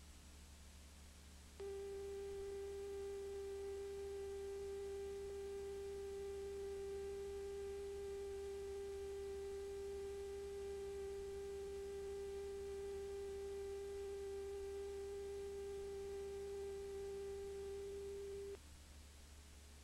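A steady electronic test tone, one unchanging pitch held for about seventeen seconds, starting a second and a half in and cutting off sharply near the end, marking a programme break. A low mains hum runs underneath throughout.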